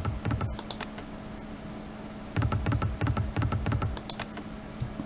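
Online slot machine game's reels spinning and stopping: rapid runs of clicks with low thuds, one ending about half a second in and another of about a second and a half starting midway, each followed by a brief high chime.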